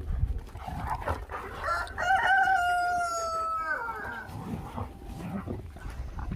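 A rooster crowing once: a long held call that drops in pitch at its end, over a low steady rumble.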